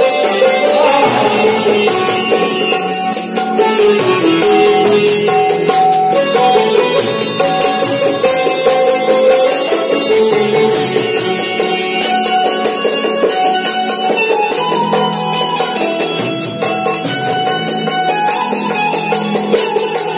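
Live ghazal music: harmonium and a plucked, keyed Indian banjo playing the melody over a steady jingling percussion beat.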